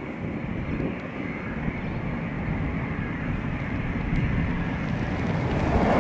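Embraer Phenom 300 business jet's twin Pratt & Whitney Canada PW535 turbofans running at low taxi power: a steady jet rush with a faint high whine.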